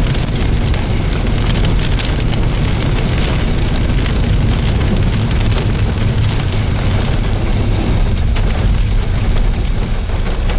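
Storm wind buffeting the microphone, a loud steady rumble, with scattered ticks of rain.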